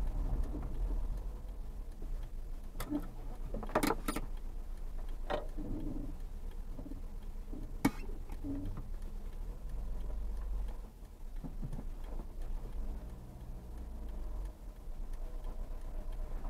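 Low steady rumble of a car's engine and tyres heard from inside the cabin as it creeps slowly through a parking lot, with a few short clicks and knocks scattered through it, the sharpest a little before halfway.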